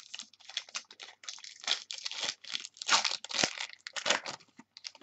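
Wrapper of a 2012 Playbook football card pack being torn open by hand and crinkled, a quick run of crackling tears.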